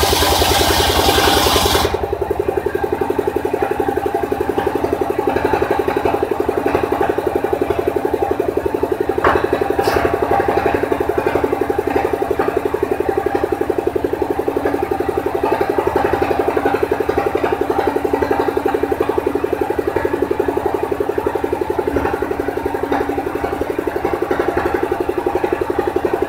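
Engine-driven circular saw bench finishing a cut through a wooden plank, the high cutting noise stopping suddenly about two seconds in. After that the saw's engine runs on steadily between cuts.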